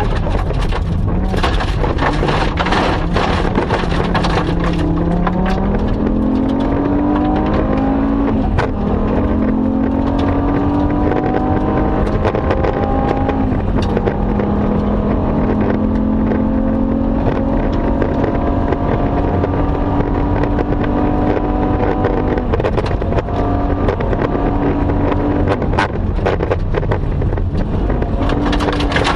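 Rally car engine heard from inside the cabin at full effort, revving up, dropping sharply at a gear change and holding high revs. Stones and gravel clatter against the underbody at the start and again near the end.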